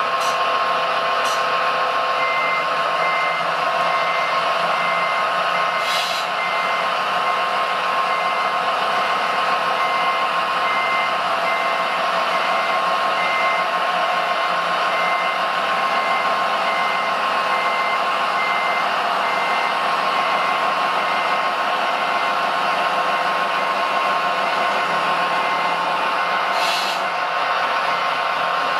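RC hydraulic model excavator (a 956) running steadily with a constant hum, while its travel alarm beeps over and over as it drives on its tracks, beginning about two seconds in.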